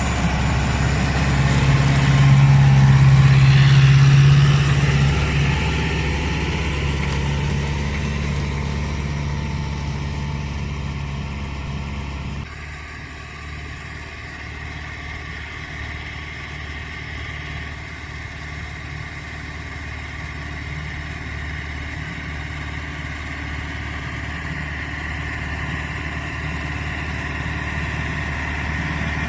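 Case CX80 tractor's diesel engine running steadily while ploughing with a four-furrow plough. It grows louder a couple of seconds in, then drops suddenly to a quieter, even drone about twelve seconds in.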